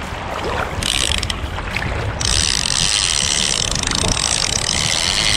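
A fishing reel's clicker buzzes in a fast ratchet as line is pulled off the spool: first a short run about a second in, then a longer, louder run from about two seconds in until near the end. Wind and surf rumble underneath.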